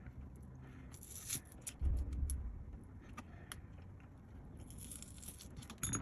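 Small clicks, taps and scrapes of a prying tool being worked under a glued laptop battery cell to free it from its adhesive tape, with a dull low bump about two seconds in and a run of clicks near the end.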